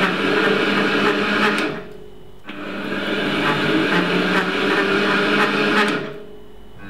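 Bernardo Profi 400 metal lathe running under power feed while a threading tool cuts a screw thread, with chips coming off the work. The running noise drops away briefly about two seconds in, returns for a second pass, and falls away again near the end.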